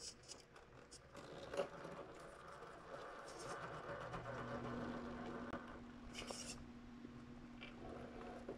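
Redcat Ascent RC rock crawler climbing boulders: faint scraping and clicking of its tires and chassis on rock, with one sharp click about a second and a half in and a short scrape near the end. A faint steady hum comes in about halfway through.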